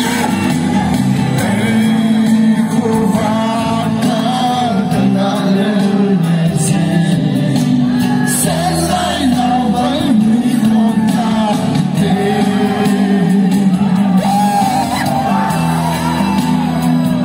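Live song performance over a loud PA: a singer on microphone over backing music, with the crowd shouting and whooping along.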